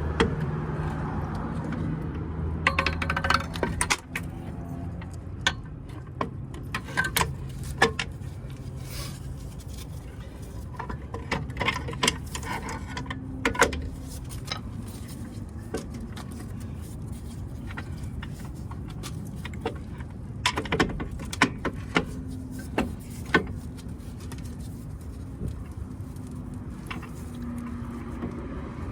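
Scattered metallic clinks and knocks of truck drum-brake shoes and their hardware being handled and fitted onto the S-cam, over a steady low hum.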